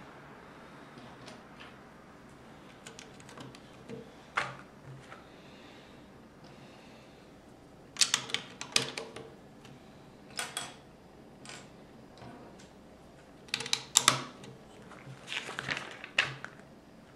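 Plastic Lego bricks clicking and snapping as plates are pressed onto a brick-built car: scattered sharp clicks, in busy clusters about eight seconds in and again near the end.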